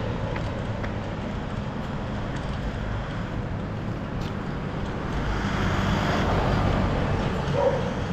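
Road traffic: cars driving along a city street, a steady rumble that swells louder around six seconds in.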